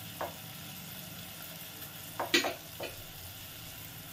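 Peas, onion and tomato frying in a pot on a gas stove: a steady, quiet sizzle, with a few short knocks, the loudest about two and a half seconds in.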